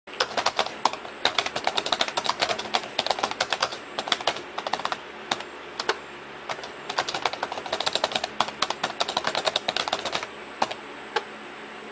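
Fast typing on a computer keyboard: runs of quick key clicks broken by short pauses.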